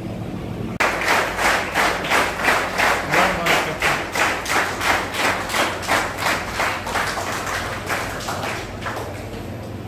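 An audience clapping in unison, about three claps a second. It starts sharply about a second in and fades over the last couple of seconds.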